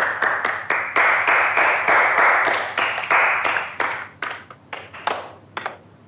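A small group of people clapping in welcome: dense, even applause that thins to a few scattered claps about four seconds in and dies away.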